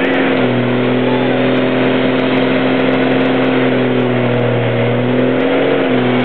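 1999 Dodge Ram pickup doing a burnout: its engine is held at high, steady revs while the rear tyres spin in place. The pitch drops slightly about half a second in and swells briefly near the end.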